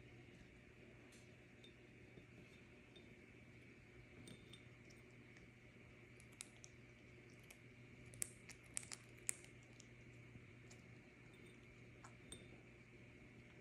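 A parrot's beak working at berries: faint sharp clicks and ticks, with a quick run of four louder clicks about eight to nine seconds in, over a low steady hum.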